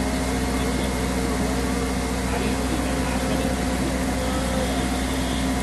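Motorboat engine running at a steady pitch while the boat is under way.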